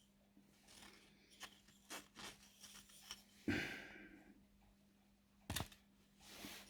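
Faint clicks and knocks of a mantle clock movement being handled while its mainspring is let down with the winding key and a piece of wood. About halfway through comes a louder knock followed by a short breathy sound, and a sharp single click comes near the end.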